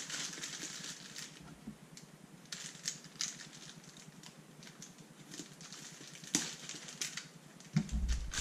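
Clear plastic wrapping bag crinkling and crackling as it is torn open and pulled back by hand, with scattered sharp clicks. A dull thump near the end.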